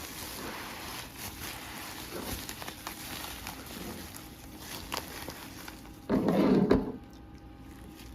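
Handling sounds as a package and its contents are unpacked: scattered light clicks and rustles over a steady hiss, with one louder, dull rustle lasting under a second about six seconds in.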